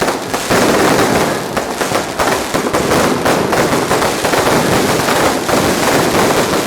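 Fireworks going off in a dense, continuous rattle of rapid sharp cracks and bangs.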